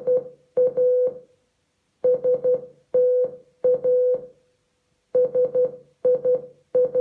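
Morse code for the name "Anastasia" played as short and long beeps at one steady pitch through an Amazon Echo speaker. The beeps come in groups letter by letter (N, A, S, T, A, S, I, A), with short pauses between letters.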